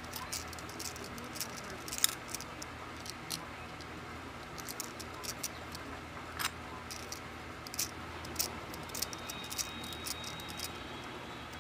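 Light, irregular metallic clicks and scrapes of a small metal tool working at the back of a brass ASSA Twin 6000 lock cylinder as it is taken apart. The sharpest clicks come about two seconds in and again about six and a half seconds in.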